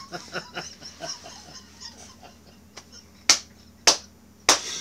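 A man's laughter trailing off, then three sharp clicks or knocks about half a second apart near the end.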